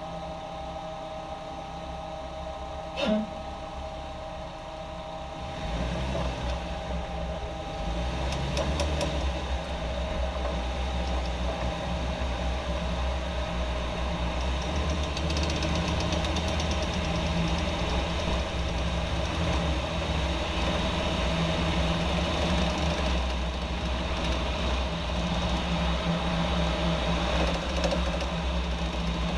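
2014 Jeep Wrangler JK running, getting louder about six seconds in and again shortly after, with an intermittent knocking noise that the owner places at the rear driveshaft, cause not yet found.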